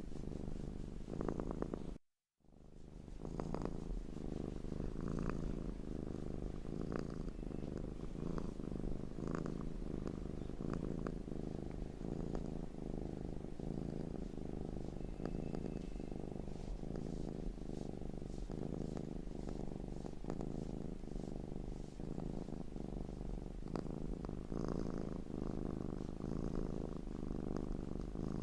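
Domestic cat purring steadily in a close, continuous rhythmic rumble. It cuts out briefly about two seconds in, at the seam of the loop, and fades straight back in.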